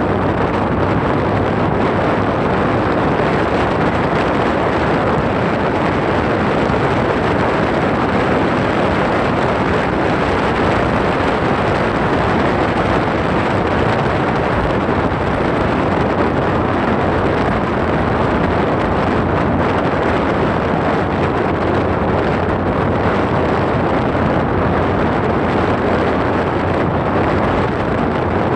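Loud, steady rushing noise that holds level throughout, with no distinct pitch or separate events.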